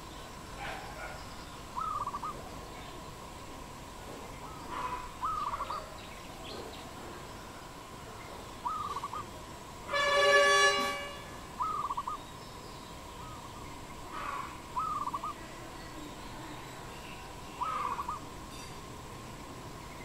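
Dove cooing in short, rolling calls repeated about every three seconds. About halfway through, a louder honk lasting about a second stands out.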